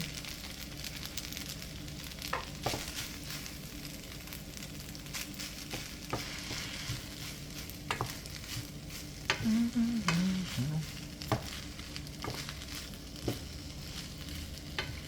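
Lo mein of spaghetti, chicken and vegetables sizzling in a frying pan as it is stirred, with sharp clicks of the utensil against the pan every second or so.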